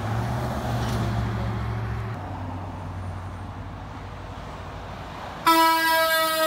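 Flatbed tow truck's engine running as it drives past, fading after about two seconds. About five and a half seconds in, a box truck's horn sounds one steady blast lasting about a second, the loudest sound.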